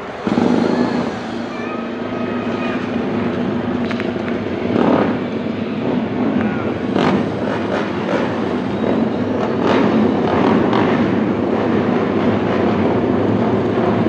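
Many racing motorcycle engines running together on the starting grid, with sharp revs blipped now and then. The sound cuts in suddenly at the start and builds into a louder, steady din.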